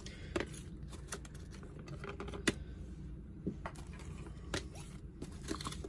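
Stiff blank player boards from a board game kit tapping and sliding against each other as they are handled one by one, a scatter of light clicks with one sharper tap about two and a half seconds in.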